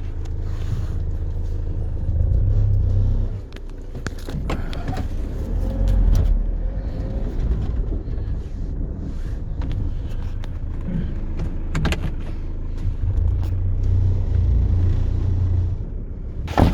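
A heavy vehicle engine running with a low rumble that swells louder twice, with scattered knocks and clunks.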